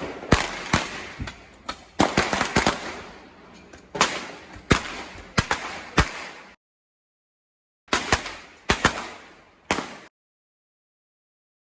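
Fireworks going off: a rapid string of sharp bangs and cracks, each echoing off the street, then a short cut-out and a few more bangs, ending abruptly.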